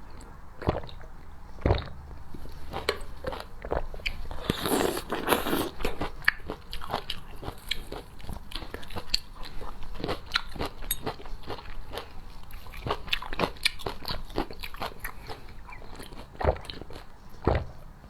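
Close-miked mouth sounds of someone eating: a run of sharp bites and crunches, with a denser crackling stretch about five seconds in and a few louder cracks near the end.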